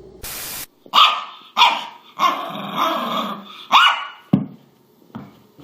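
A dog barking: about five barks in quick succession, the middle one drawn out, after a brief burst of hiss near the start and followed by a single sharp thump.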